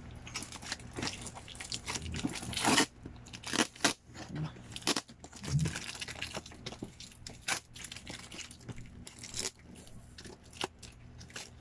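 A shipping parcel being opened by hand: plastic packaging and cardboard crackling, crinkling and tearing in irregular spurts, with small knocks as the box is handled.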